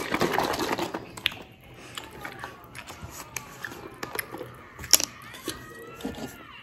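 Pineapple fruit-drink carton being handled, with about a second of rustling and crinkling at first. Then come scattered small plastic clicks as its screw cap is twisted open, with one sharp click about five seconds in.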